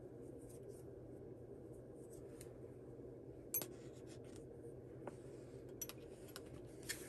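Faint handling sounds of yarn being threaded with a metal tapestry needle at a wooden peg loom: light rubbing and a few small clicks, the sharpest about three and a half seconds in, over a steady low room hum.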